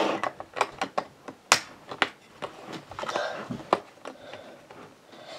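Lego bricks clicking and clattering as plastic pieces are handled and searched through: a quick, irregular series of sharp little clicks with some rustling between them.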